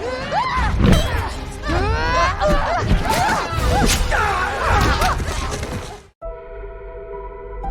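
Film soundtrack: many overlapping screaming and shouting voices with crashes and hits over music. It cuts off abruptly about six seconds in, followed by soft held music tones.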